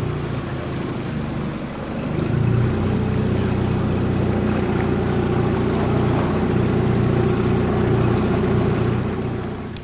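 Boat's outboard motor running steadily, growing louder about two seconds in and breaking off near the end.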